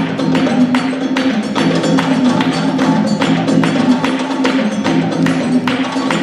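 Music with a steady percussive beat, about two strokes a second, over sustained low tones.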